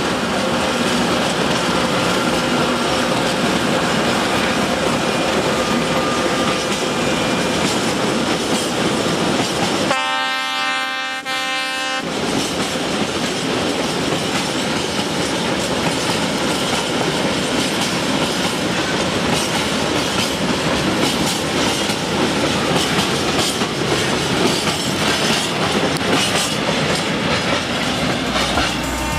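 Freight train of tank wagons passing behind a ČKD class 770 (T669) diesel-electric locomotive, with the engine running and the wagon wheels clattering over the track. About a third of the way in, the locomotive's horn sounds one blast of about two seconds.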